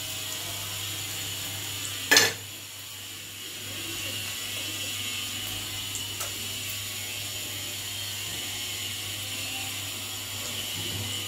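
Hot oil sizzling steadily in an iron kadai as rava-coated fish fry, with one sharp knock about two seconds in.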